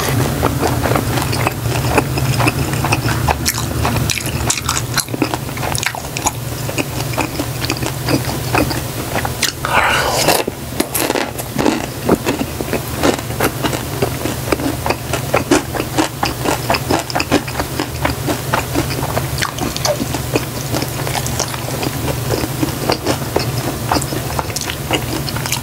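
Close-miked chewing of crispy battered fried pork (kkobaro), with dense crisp crackles and wet mouth sounds and one louder stretch about ten seconds in, over a low steady hum.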